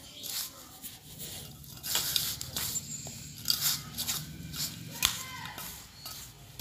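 Hands rubbing and squeezing whole-wheat flour mixed with oil in a stainless steel bowl, to work the oil into the flour: an irregular dry rustling and scraping in uneven strokes.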